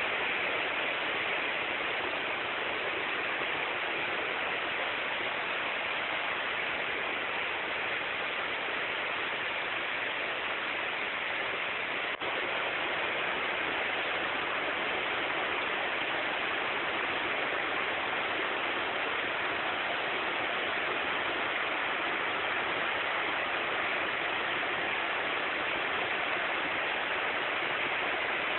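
Waterfall: a steady rush of falling water, with a momentary break about twelve seconds in.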